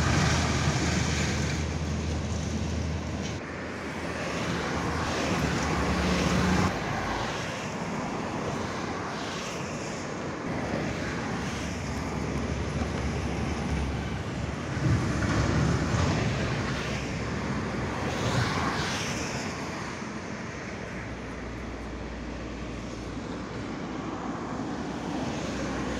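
Steady road-traffic noise from vehicles passing over a highway bridge, swelling and fading as they go by.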